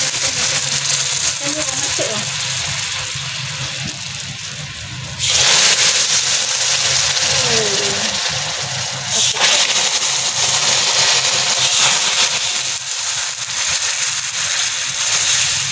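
Water poured into a wok of hot caramelised sugar, hissing and sputtering loudly as it boils on contact. The hiss eases off a little, then surges again as more water goes in about five seconds in and once more about nine seconds in.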